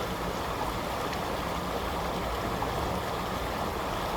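Creek water running steadily, an even rush of flowing water with a low rumble underneath.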